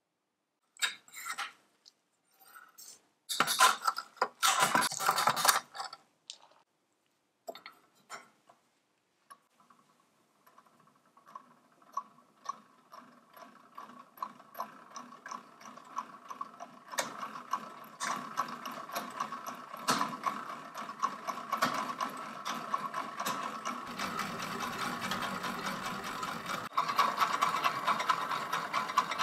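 Clockwork mechanism of an antique tin toy carousel: a few sharp metallic clicks and rattles, then from about ten seconds in a continuous whirring of the gear train with a dense fast ticking, getting louder as the carousel spins with its airplanes.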